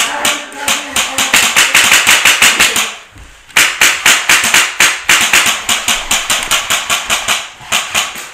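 Rapid airsoft gunfire: long full-auto strings of sharp, evenly spaced cracks in a fast rhythm, broken by a short pause about three seconds in.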